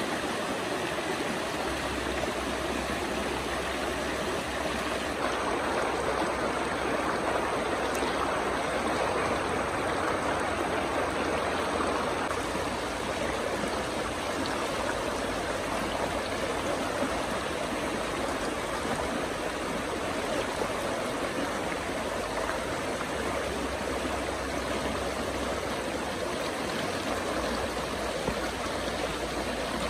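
A shallow, fast stream running over rocks and small rapids: a steady rush of water.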